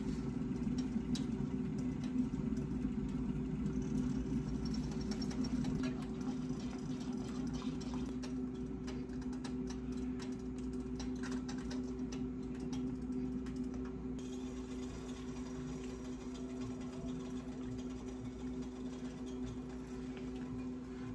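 A steady low motor hum throughout, with faint clicks and scrapes of a spoon against a glass jar and a spatula against a metal skillet, mostly in the first half.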